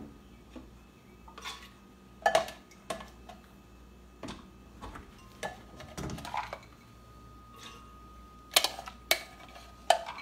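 A small plastic scoop scraping and knocking in a ceramic bowl as washed black-eyed peas are scooped out and tipped into a glass blender jar: a scatter of short clinks and clatters, the loudest a couple of seconds in and a cluster near the end.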